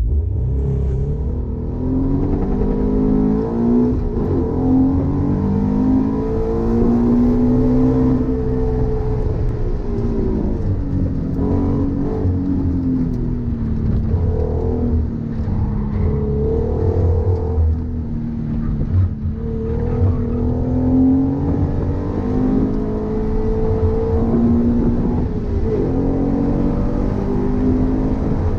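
Subaru BRZ's flat-four engine heard from inside the cabin, driven hard, its pitch repeatedly climbing under acceleration and dropping off through gear changes and braking.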